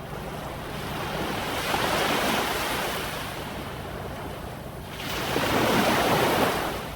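Ocean surf: two waves surge in and wash out, one about two seconds in and a slightly louder one near the end.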